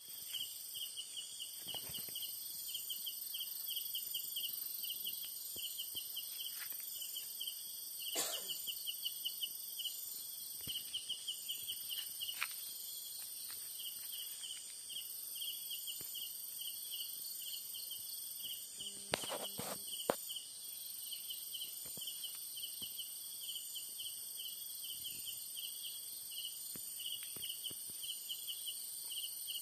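Night insect chorus: crickets chirping in quick, even pulses over a steady high-pitched insect buzz, with a few brief handling clicks about eight and twenty seconds in.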